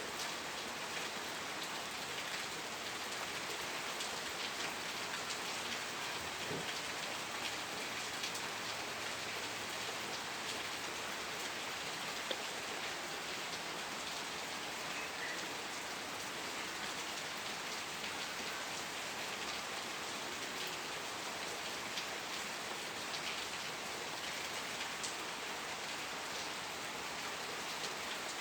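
Steady rain falling, a dense even patter of drops on a surface with fine individual drop ticks throughout.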